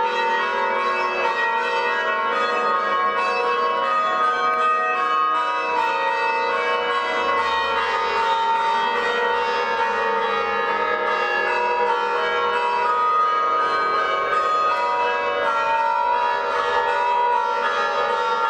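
Church bells ringing in a continuous peal, many strokes overlapping into a sustained, dense ringing. This is the commemorative tolling of Armenian church bells, rung 100 times for the genocide centenary.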